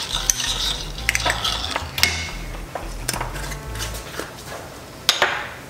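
A wooden spoon stirring and scraping wine sauce in a stainless steel pan, with several sharp knocks and clinks of the spoon against the pan, the loudest about two seconds in and again just past five seconds.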